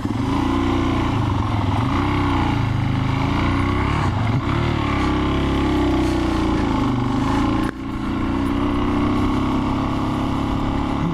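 Adventure motorcycle engine working hard through a deep snow crossing, revving up and down again and again as the rider pushes the bike through. The revs dip suddenly for a moment about two-thirds of the way through, then pick up again.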